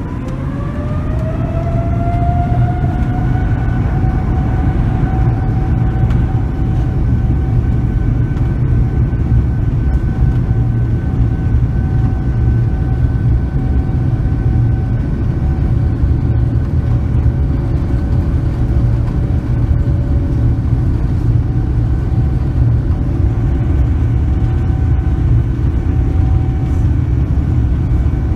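Boeing 787-9's turbofan engines spooling up to takeoff thrust, heard from inside the cabin. A rising whine levels off into a steady tone over the first few seconds, over a deep, continuous rumble of the takeoff roll.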